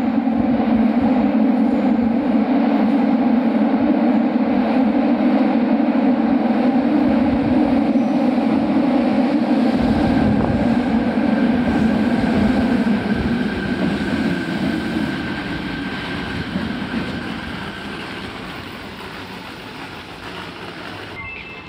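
Fukuoka City Subway Nanakuma Line linear-motor metro train running into the station platform. Its loud running noise fades steadily as it slows to a stop, with a steady high whine during the slowing and a short two-note beep near the end.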